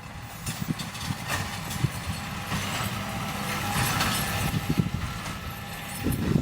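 John Deere 7820 tractor running steadily with a Massey Ferguson 2270 large square baler working behind it. Irregular mechanical knocks run through a steady engine note.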